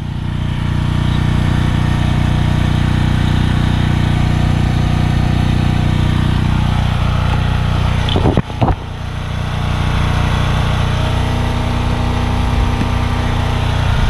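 A small engine running steadily, its note shifting slightly about halfway through, with a short knock a little after that.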